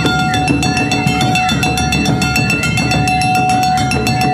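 Awa Odori narimono band playing: quick, evenly spaced clanging strikes on a kane hand gong over shime-daiko and big drums, with a bamboo flute holding long notes.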